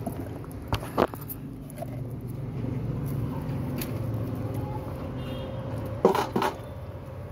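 A plastic food tub knocking against a steel plate a few times about six seconds in, as rice is tipped out of it, with a couple of lighter knocks about a second in. A steady low rumble runs underneath.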